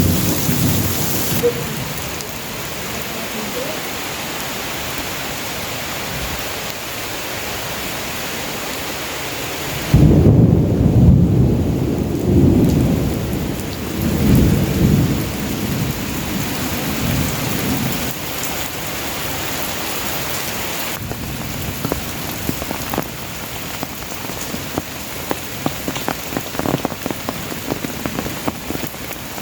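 Heavy tropical rain falling steadily. About ten seconds in, a long roll of thunder breaks in suddenly and swells a couple of times over several seconds before dying away. Near the end, individual drops tick sharply close by over the downpour.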